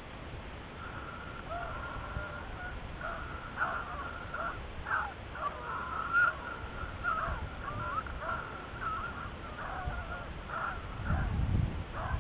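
Beagles baying in the distance, many short overlapping calls running on and off, the sound of a pack giving tongue while running a rabbit. A brief low rumble near the end.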